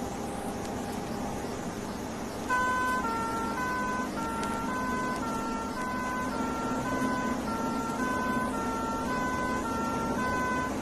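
An emergency vehicle's engine running, then about two and a half seconds in a British 'two-tone' horn switches on, alternating between a higher and a lower note about every half second.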